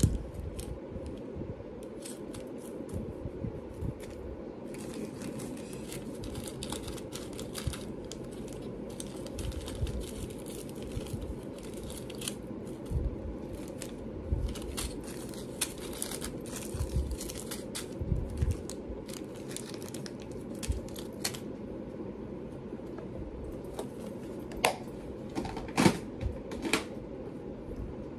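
Small plastic bags and containers of jewelry findings being handled: plastic rustling and crinkling with scattered light clicks and taps over a steady low hum, and a few sharper clicks near the end.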